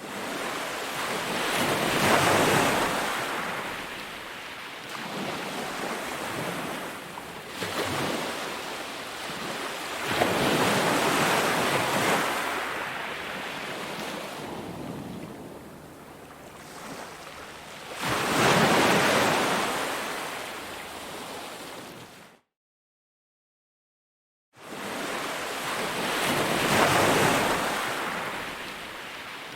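Sea waves breaking on a beach, each wave swelling into a loud rush and washing back over a few seconds. The sound cuts out completely for about two seconds about three-quarters of the way through, then returns.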